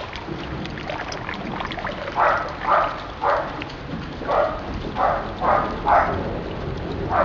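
Water pouring from a corrugated hose into a plastic rainwater barrel, splashing steadily on the water surface. From about two seconds in, a run of short, loud animal calls comes in groups about half a second apart.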